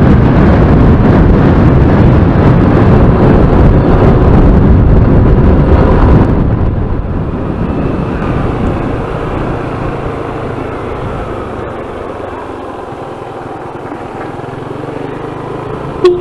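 Wind buffeting the microphone while riding a Yamaha Nmax 155 scooter, loud at first and easing off from about six seconds in as the scooter slows, leaving the engine's low hum and road noise. A short toot, like a horn, near the end.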